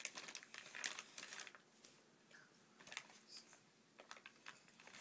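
Faint, irregular rustling of fabric and packets as a toddler rummages with her hands through a pile of clothes and wipes, busiest in the first second and a half.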